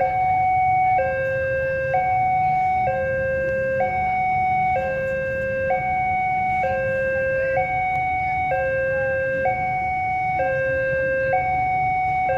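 Electronic two-tone warning alarm, switching between a high and a low tone about once a second, over a steady low rumble.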